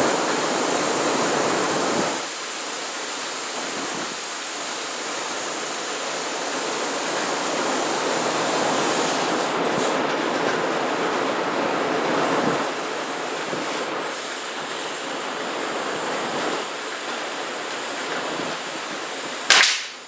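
Steady rushing air noise from a large drum fan in a workshop, its loudness easing and swelling. One sharp snap near the end.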